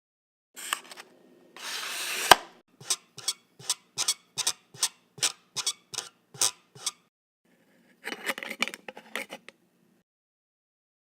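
Short scraping and rubbing sounds followed by a run of about a dozen evenly spaced clicks, about three a second, and another scrape. The pieces are cut apart by dead silence, as edited in over a stop-motion assembly of a cabinet table saw. The first scrape ends in a sharp knock.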